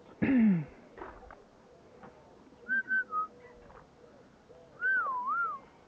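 A person whistling: three short notes, then a longer wavering whistle that slides down near the end. At the very start there is a brief loud cry falling in pitch, which is the loudest thing heard.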